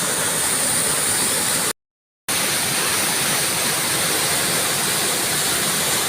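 Waterfall pouring steadily, an even rush of falling water. The sound cuts out completely for about half a second near two seconds in, then resumes unchanged.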